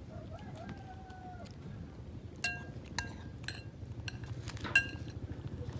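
Metal spoon clinking against a glass bowl of rice: a few sharp, ringing clinks about two and a half, three and nearly five seconds in, with lighter taps between.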